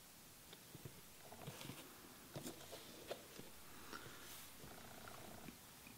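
Faint handling of a cardboard book box and its books: scattered light knocks, taps and rustles.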